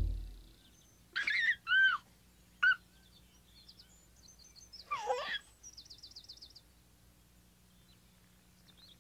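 Songbirds chirping and calling: a few loud looping calls in the first three seconds, a warbling call about five seconds in, and faint twittering between.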